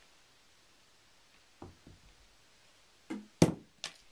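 Small white plastic balls dropping and knocking against the body and carpet: a faint thump early, then two sharp light knocks about three and a half seconds in, over a quiet room.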